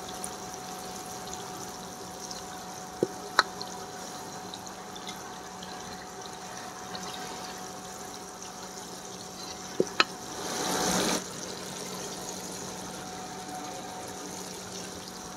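Chicken karahi sizzling steadily in its separated oil in a karahi, while the excess oil is spooned off: a ladle clinks against the metal pan in two pairs, about three seconds in and again about ten seconds in. Just after the second pair comes a louder rush of about a second.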